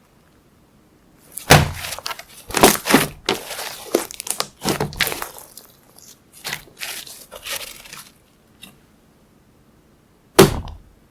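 Slime being squished and poked by hand, giving a run of sticky pops and crackles for about six seconds, then one sharp pop near the end.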